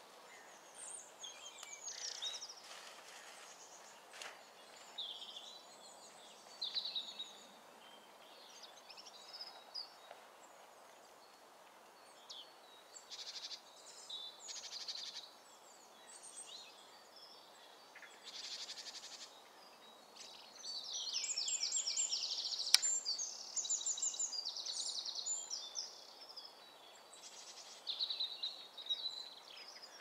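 Several small woodland songbirds singing and calling over a faint steady hiss, in short high phrases scattered throughout. The loudest is a long, rapid trilling song lasting several seconds a little past the middle, with a single sharp click during it.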